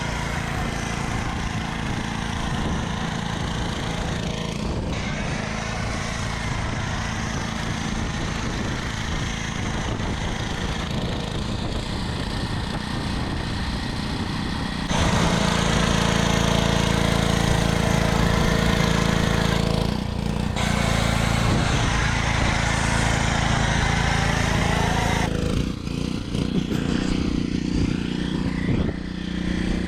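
Pressure washer running with a foam cannon spraying foam: a steady motor hum under a spray hiss, louder from about halfway through and briefly dropping out twice, then uneven near the end.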